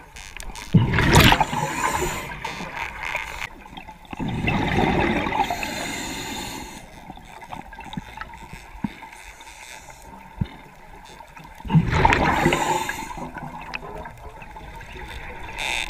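Scuba regulator breathing underwater: exhaled bubbles gurgling out in three loud bursts, with a low bubbling in between.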